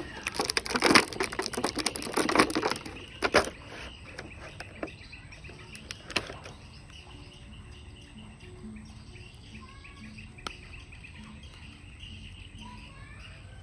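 Plastic packaging crinkling and rustling while being handled for about three and a half seconds, then quieter, with occasional single clicks and faint short chirping tones.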